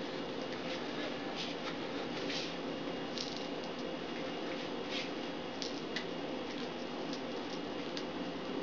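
Soft rubbing and short squeaks, about one a second, as hands shift and pull a tubular tire along a glued bicycle rim to even out its cotton base strip, over a steady low background hum.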